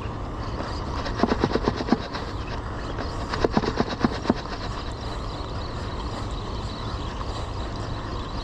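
Spinning fishing reel being cranked, giving two short runs of rapid clicking, about a second in and again around three and a half seconds in, over a steady low rumble.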